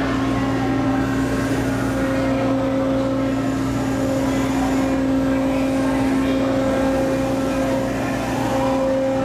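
Motion-simulator ride machinery running with a loud, steady drone that holds one pitch.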